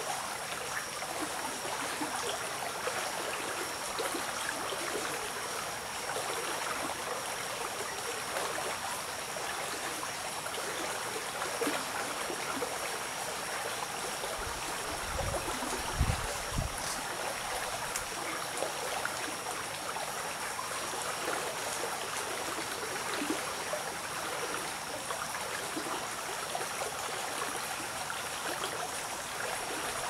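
Shallow forest stream flowing steadily over its bed. A thin steady high tone sits above the water, and a brief low rumble comes about halfway through.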